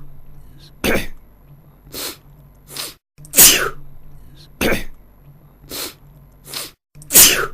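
A man sneezing over and over, about once a second. Every three and a half seconds or so comes a big, loud sneeze followed by three smaller ones.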